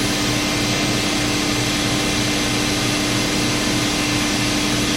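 BostoMatic dual-spindle vertical machining center running with both spindles turning at 1,000 RPM: a steady hum with a constant mid-pitched tone over an even hiss.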